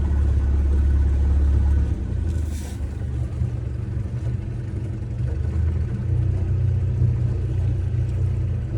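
Engine running steadily with a low rumble, and a short hiss about two and a half seconds in.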